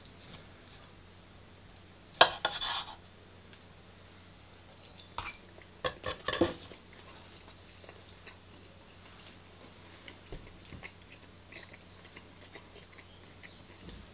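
Knife and fork on a wooden chopping board: a loud scraping clatter of cutlery on the board about two seconds in, then a few sharp knocks around the middle as the knife is set down on the board. After that come only faint small clicks of chewing.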